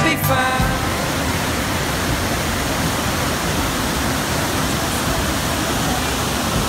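Waterfall rushing steadily as white water pours over boulders. The last notes of a song cut out about half a second in.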